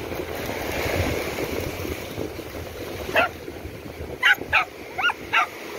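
Surf washing in steadily over shallow water. Short high-pitched calls cut through it: one about three seconds in and four more in quick succession near the end.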